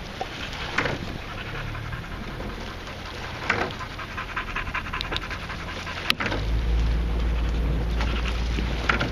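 A four-rower racing shell being rowed: oar blades splash and the rigging clacks once per stroke, about every three seconds, including a sharp click about six seconds in. Under it is a steady low rumble that grows louder about six seconds in.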